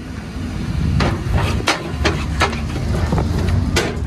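Maruti Suzuki Grand Vitara SUV's tyres rolling over a bed of logs and pipes: a series of irregular wooden knocks, about six, starting about a second in, over a steady low rumble.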